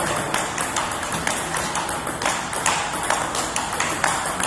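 Table tennis rally in a blocking drill: the ball clicks sharply off the bats, one faced with sponge-less OX short-pimpled rubber, and off the table, about three hits a second.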